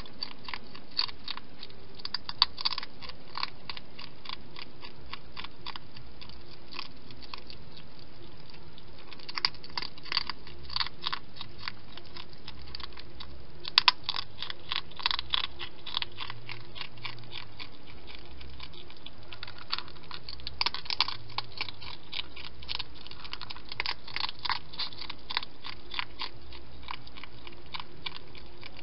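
Wild hedgehog eating from a bowl: bouts of rapid, crunchy chewing clicks broken by pauses of a few seconds, over a steady background hiss.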